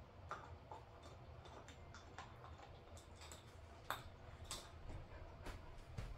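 A dog's teeth clicking and gnawing on a hanging hard chew toy: faint, irregular clicks, with one sharper click about four seconds in.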